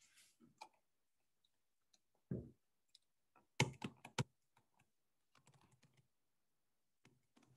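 Typing on a computer keyboard: a dull thump about two seconds in, a quick run of keystrokes a little later, then a few lighter taps.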